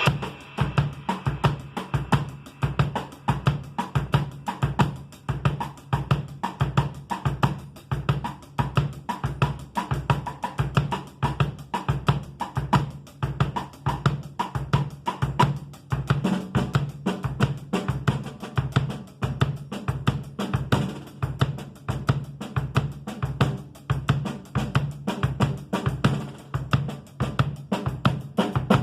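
Pearl Export EXL drum kit played in a fast, steady groove: rapid, evenly spaced strokes of bass drum and snare over hi-hat and cymbals.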